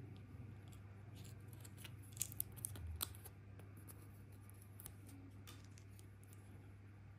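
Fingers handling a small plastic toy figure and its sticker: faint scattered clicks and scrapes, with a short cluster of sharper clicks and a rustle about two to three seconds in, over a low steady hum.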